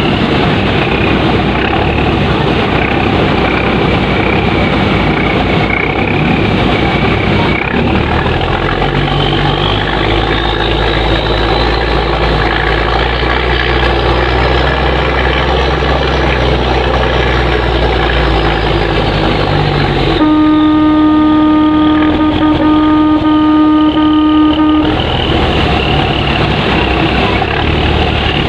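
Ro-Ro ferry's engine running steadily under way, with water rushing along the hull. About two-thirds of the way through, a boat horn sounds one long steady blast of four to five seconds.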